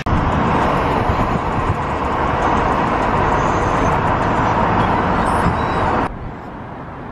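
Rushing wind and road noise at the open window of a moving car, loud and steady, cutting off suddenly about six seconds in.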